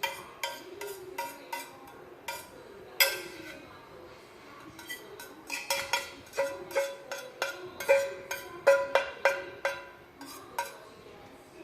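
A spoon knocking and scraping against a bowl in irregular clusters of sharp clinks, each ringing briefly, as chopped boiled eggs are tipped out and worked into the dressing.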